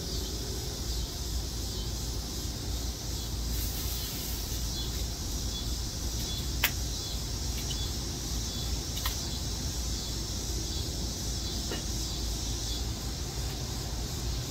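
Steady hiss and low rumble of the open fire under an outdoor wok, with three sharp pops from the fire in the middle stretch.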